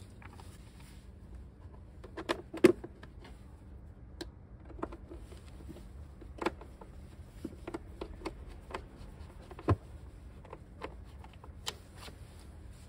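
Hands handling plastic and metal parts at the air filter box of a Yamaha YBR 125 motorcycle: scattered light clicks and knocks, with sharper knocks about three seconds in and near ten seconds.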